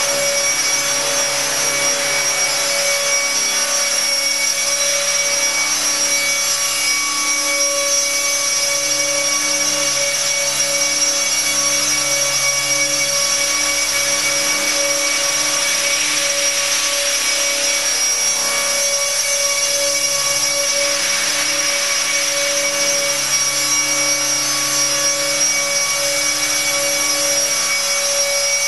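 Align T-Rex 600 electric RC helicopter hovering: a steady high whine from its electric motor and drive over the rush of the spinning rotor blades.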